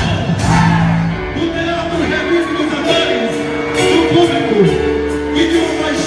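Loud quadrilha junina music: a singer over a band, playing steadily without a break.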